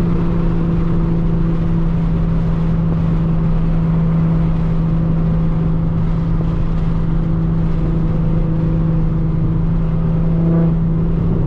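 Nissan 350Z's VQ V6 engine droning at a steady pitch while the car cruises at constant speed, with road noise beneath.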